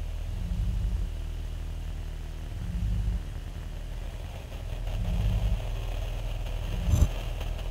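A deep, steady rumble that swells three times, about two seconds apart, with one sharp thump about seven seconds in.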